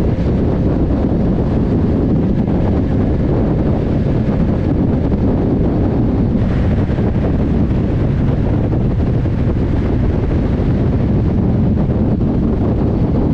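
Steady wind rush over the microphone of a motorcycle moving at highway speed, with a low rumble of the bike and road underneath.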